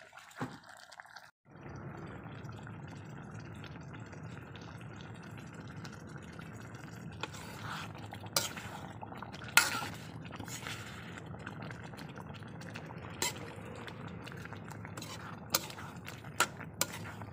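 Metal ladle stirring and scooping thick beef stew in an aluminium wok, with a wet stirring sound over a steady low rush. The ladle clinks sharply against the pan several times in the second half, loudest about ten seconds in.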